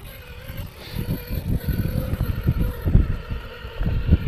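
Electric motor of an RC rock crawler running with a faint steady whine as the truck creeps over rock, under irregular wind buffeting on the microphone.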